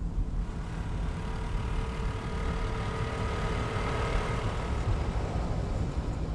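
Motor scooter running as it rides along: a steady low engine rumble with a faint whine through the middle.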